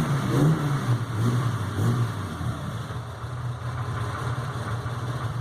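Chevrolet Opala's inline-six engine rumbling through its exhaust. It is blipped with the throttle a few times in the first two seconds, then settles to a steady idle.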